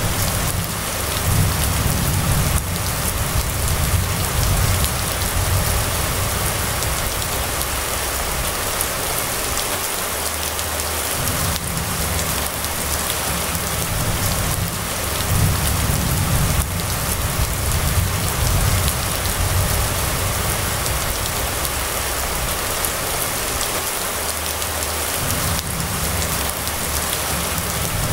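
Steady rain falling on a street, an even hiss throughout, under a low rumble that swells and fades every several seconds.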